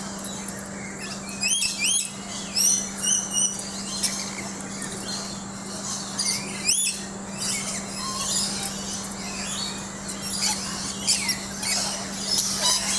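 Several birds chirping in quick, rising whistled calls, in clusters about one and a half seconds in, again around six and a half seconds, and toward the end, over a steady low hum.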